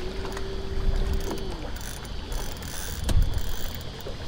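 Bow-mounted electric trolling motor running briefly: a steady hum that rises as it spins up, holds for about a second and a half, then winds down. A knock about three seconds in, over low rumble of water and wind.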